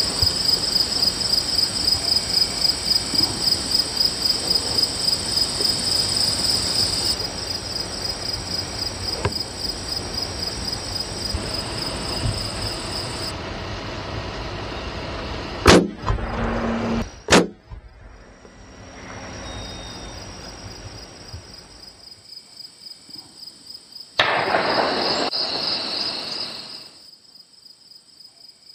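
Field insects chirping in a steady, evenly pulsing trill, then a sharp crack about halfway through from a big bore air rifle shot at a deer, followed a second and a half later by a second sharp crack. A short rush of noise comes a few seconds before the end.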